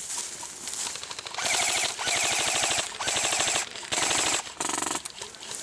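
Airsoft electric guns firing on full auto: about five bursts in quick succession, each a rapid mechanical buzz of shots lasting half a second to a second, starting about a second and a half in.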